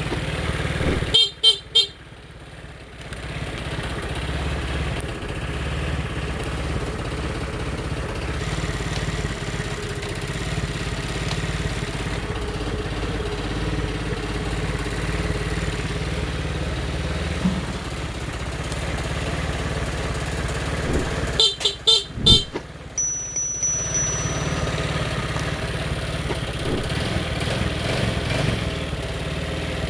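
Yamaha Mio Sporty scooter's single-cylinder engine idling steadily after a fullwave charging conversion, with the horn sounded in a few short beeps about a second in and again about twenty-two seconds in.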